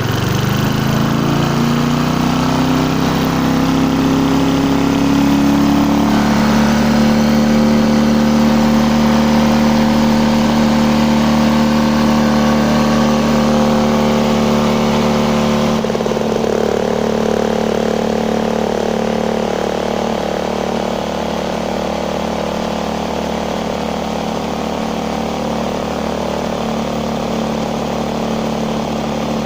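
Old Briggs and Stratton engine on a Hayter Hayterette petrol lawn mower running at high speed. Its pitch climbs over the first few seconds, then holds steady and high instead of dropping back to tick over, a sign of a governor arm fault.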